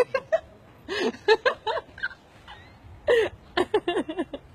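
A person's voice in short excited bursts, laughing.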